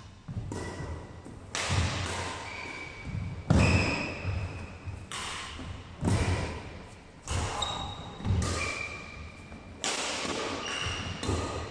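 Badminton rackets striking a shuttlecock in a rally, a sharp echoing hit roughly every second or so, with short high squeaks of court shoes on the wooden floor between shots.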